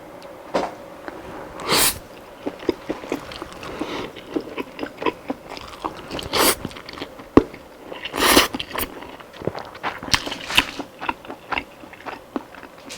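Close-miked eating: biting into and chewing crispy fried chicken, a run of crackly crunches with louder bites about two, six and a half and eight seconds in.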